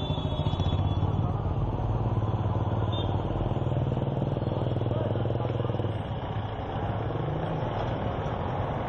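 Street traffic: cars, motorcycles and a truck driving past with their engines running. A steady low engine drone dominates for the first six seconds or so, then eases off.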